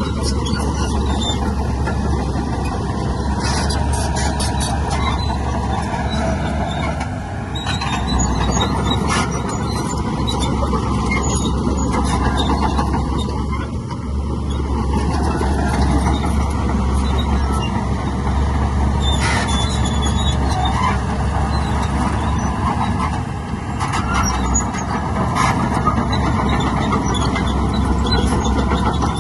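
Heavy earthmoving machinery working: a diesel engine running steadily with a deep rumble, with metallic squeals and clanks at intervals.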